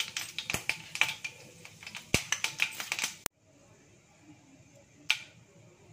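Panch phoron seeds crackling and popping in hot oil in a kadai: rapid, irregular sharp pops, several a second. The sound cuts off abruptly about three seconds in, with one more loud pop near the end.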